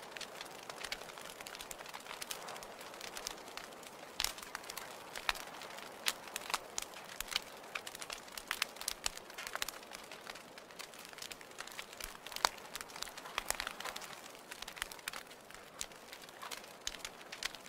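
Wood fire crackling in a fireplace: irregular sharp pops and snaps over a soft steady hiss. A louder pop comes about four seconds in and another about twelve seconds in.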